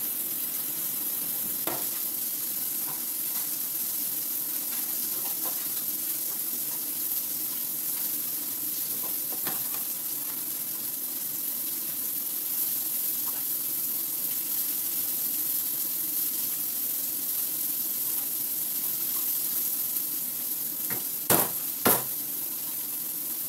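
Steady hiss throughout, with two sharp chops of a kitchen knife through raw chicken onto a wooden cutting board, about half a second apart near the end.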